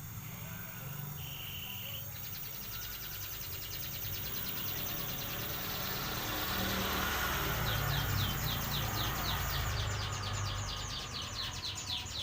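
Gas brazing torch flame hissing steadily while the copper suction pipe is brazed, growing louder around the middle. A fast, high, rhythmic chirping sounds in the background from about two seconds in and gets stronger near the end.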